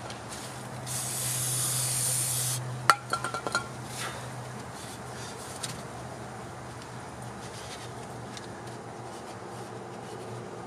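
Aerosol brake parts cleaner sprayed in one hiss of about a second and a half, degreasing the axle bore. About a second later comes a sharp click and a few quick knocks, then faint rubbing as the bore is wiped out.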